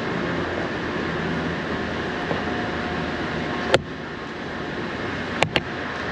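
Steady rumble of city traffic and construction-site machinery around an open excavation pit. One sharp knock comes a little past halfway, and two quick knocks come close together near the end.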